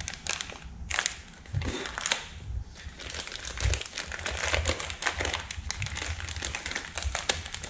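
Crinkling plastic packaging being handled and opened, with scattered small clicks and rustles: the bag holding a 2-inch plastic insulating bushing.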